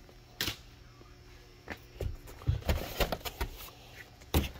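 Handling noise: a few scattered knocks and light thumps as goods are picked up and moved, among them a cardboard-boxed wall shelf.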